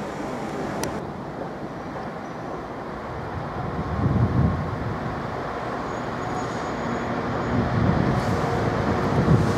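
Diesel freight locomotive approaching with its low engine rumble, which swells briefly about four seconds in and grows louder near the end.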